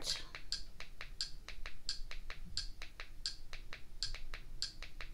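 A rapid run of small plastic clicks from a remote control's buttons being pressed over and over to page through a menu. There are about five clicks a second, with a sharper one every second click or so.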